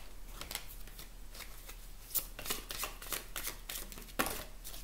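A deck of oracle cards being shuffled by hand: an irregular run of quick, soft papery slaps and flicks, with a louder slap about four seconds in.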